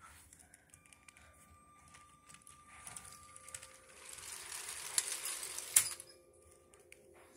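Small electric motor and gears of a battery-powered Lego locomotive whirring faintly, with light plastic clicks from the train and track; one sharper click comes a little before the end.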